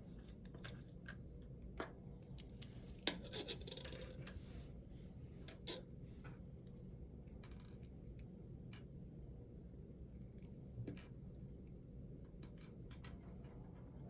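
Parts of a quartz clock being handled and pried apart: scattered light clicks and taps with a short scraping stretch, the sharpest click about three seconds in.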